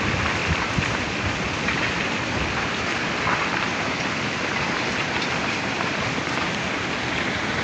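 Active landslide: a steady rushing noise of rock and debris pouring down the mountainside, with a few scattered clacks of stones striking.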